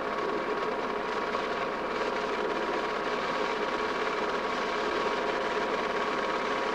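Steady mechanical whir and hum with a constant whine, unchanging throughout, like a small motor running.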